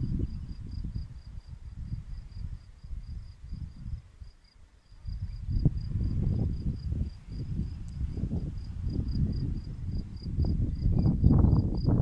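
Wind buffeting the microphone in gusts, easing off briefly about four seconds in and then returning stronger. Under it, an insect chirps steadily in an even high pulse of about three chirps a second.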